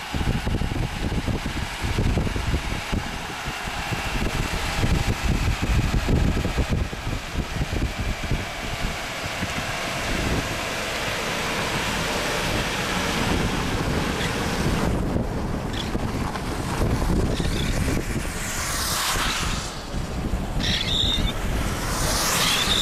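Strong gusty storm wind buffeting the microphone, a heavy low rumble under a rushing hiss. Two louder rushing gusts sweep through in the last few seconds.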